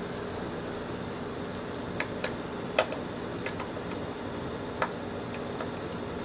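Scattered light clicks and taps as the plastic parts and screws of a Shark vacuum are handled during disassembly, about eight over a few seconds, over a steady background hum.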